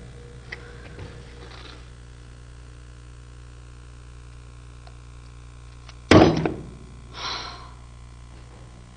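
A young woman's sudden, short, loud vocal burst about six seconds in, followed about a second later by a breathy sigh, over a low steady hum.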